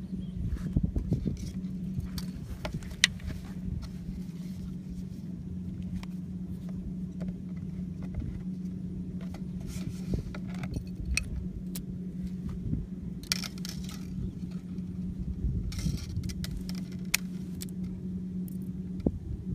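Light clicks, taps and scrapes of wire and small parts being handled against a PVC pipe, over a steady low hum and rumble.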